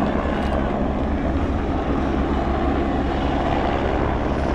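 Helicopter hovering overhead, a steady engine and rotor drone.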